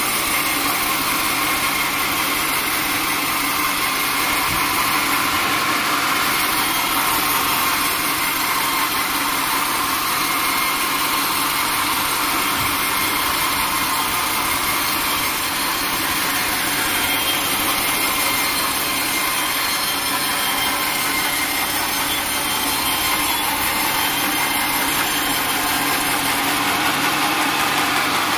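Band sawmill cutting lengthwise through a teak log, with the mill running steadily and an unbroken sawing noise.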